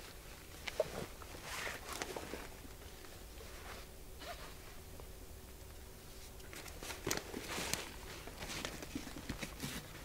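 Canvas rucksack and its webbing straps rustling and scraping as the pack is taken off and hung on a stick against a tree trunk, in two bouts with a quieter stretch between.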